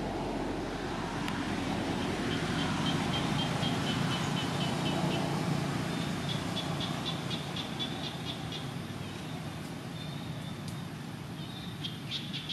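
Outdoor ambience: a steady low rumble with an insect trilling high and fast in short spells of a few seconds.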